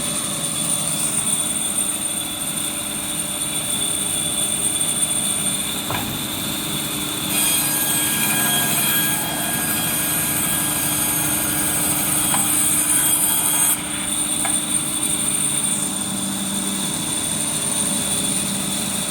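Automatic band saw running with a steady whine. About seven seconds in, a louder hissing stretch starts as the blade saws through a wooden strip, and it cuts off suddenly about six seconds later.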